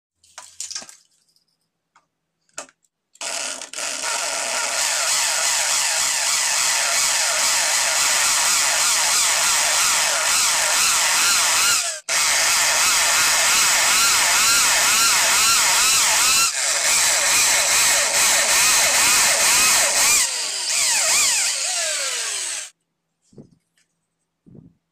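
Electric drill boring into ceramic wall tile, its motor whine wavering in pitch as it works under load. It runs for nearly twenty seconds with a brief stop about halfway and cuts off near the end, followed by a few light handling clicks.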